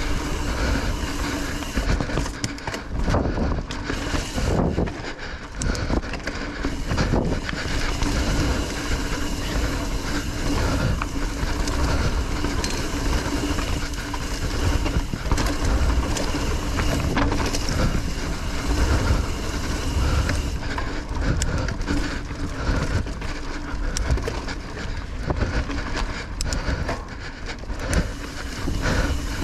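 Mountain bike being ridden along a dirt singletrack, heard from a camera on the bike or rider: tyres rolling over the trail with constant rattles and knocks from the bike over bumps and roots.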